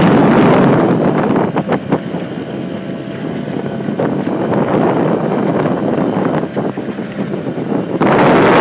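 Wind buffeting the microphone over a small 2 HP Suzuki outboard motor running steadily as the boat moves across open water. The wind noise drops after about a second and a half and comes back loud near the end.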